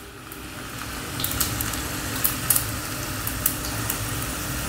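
Chopped garlic and cumin seeds frying in hot ghee in a small kadhai: a steady sizzle with scattered pops and crackles as the garlic browns. The sizzle grows a little louder over the first second or two.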